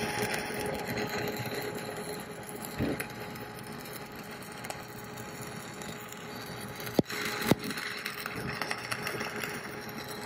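Stick-welding arc crackling steadily as a 3/32-inch 7018 electrode runs a fill pass at about 90 amps. Two sharp pops stand out about two-thirds of the way through.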